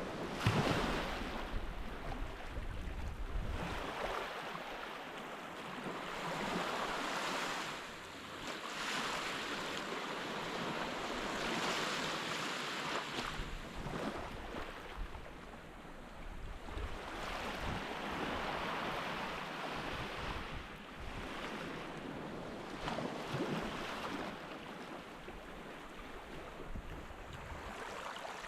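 Ocean surf washing on a sandy beach, swelling and fading every few seconds.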